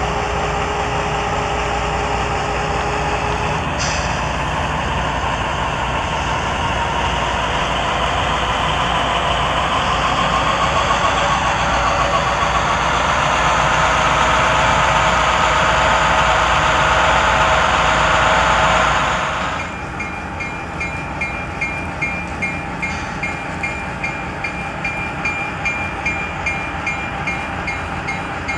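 Sound system of a Broadway Limited Imports N scale EMD E8 model diesel locomotive playing diesel engine sound, revving up steadily louder and higher to simulate the locomotive working hard under load. About two-thirds of the way through it drops off suddenly to a quieter sound with a regular ticking about twice a second.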